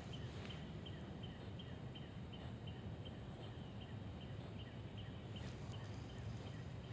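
Faint outdoor ambience: a steady low rumble with a short, high peep repeating evenly about three times a second.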